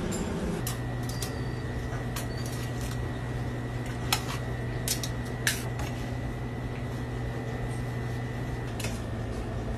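Steady kitchen machine hum, like a fan or extractor, under three sharp metal clicks a little before the middle: a hinged wire grilling basket and metal tongs being handled on a counter.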